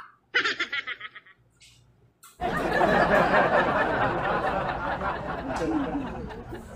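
Laughter: a quick run of snickers, then from about two and a half seconds in a longer, louder, breathy stretch that fades near the end.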